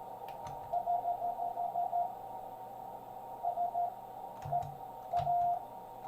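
Morse code (CW) received on a 40-meter ham radio: a single tone near 700 Hz keyed in dits and dahs, heard through the receiver's narrow CW filter over band hiss. A few low knocks come along with it.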